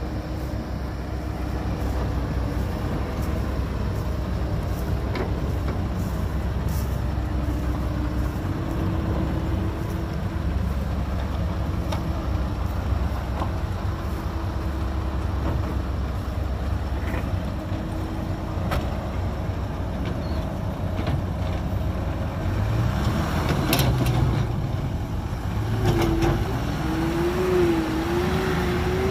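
Heavy diesel earthmoving machinery running steadily under a low rumble, with a thin whine that wavers up and down and scattered knocks. It gets busier in the last few seconds, where the whine swings rapidly up and down.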